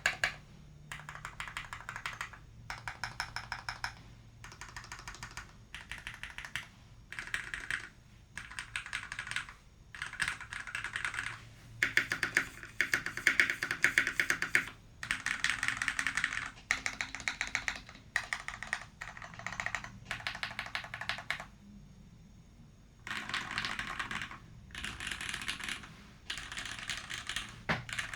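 Typing on a 60% mechanical keyboard with lubed linear Cherry MX Red switches on a brass plate in a tray mount: fast runs of keystroke clacks in bursts of a second or two, broken by short pauses.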